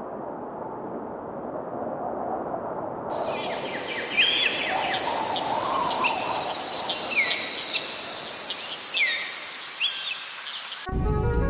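A steady rushing noise gives way, about three seconds in, to a forest ambience of birds chirping repeatedly over a steady high insect chorus. Electronic music with a beat starts near the end.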